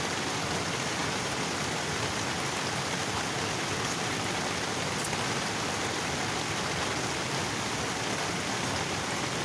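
Steady rush of flowing water from a waterfall, an even hiss without breaks.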